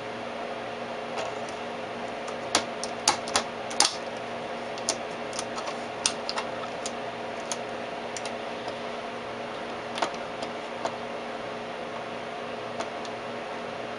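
Steady hum of a running vacuum-tube Tektronix 549 oscilloscope, its cooling fan and mains hum, with scattered sharp clicks over it: a quick run of four or five about three seconds in and a few single ones later.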